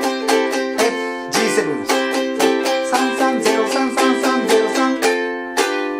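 Ukulele strummed in steady down-up strokes, about four strums a second, playing a slow riff on a C chord with the first string's 3rd fret pressed and released in turn, with one chord held near the end.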